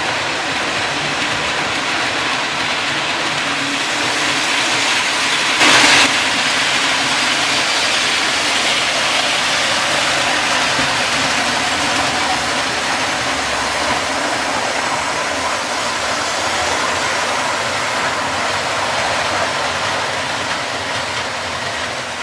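OO gauge model train running on the layout: a steady mechanical rumble and hiss, with one brief louder burst about six seconds in.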